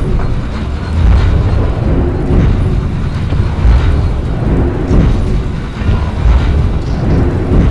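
Film battle sound effects: a continuous heavy rumble with deep explosion booms about every second and a half.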